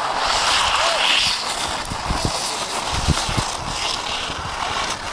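Skis hissing and scraping over hard-packed snow during a run down the slope, with a few low wind or handling bumps on the microphone about two to three seconds in.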